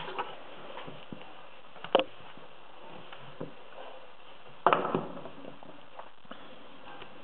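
Metallic clicks and light ticks of a pick working in a Ucem multipoint dimple lock cylinder: a sharp click about two seconds in, a louder click with a short rattle just before five seconds in, and a few faint ticks, over a steady faint hiss.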